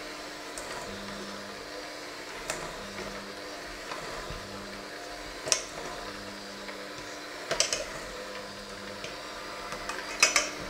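Electric hand mixer running steadily with its beaters in a thick mixture in a stainless steel bowl. The beaters now and then clink sharply against the metal bowl: once about a quarter and half way in, then in quick clusters later on, the loudest near the end.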